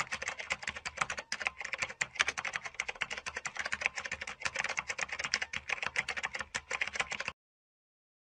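Computer keyboard typing sound effect: rapid, irregular key clicks that stop abruptly about seven seconds in.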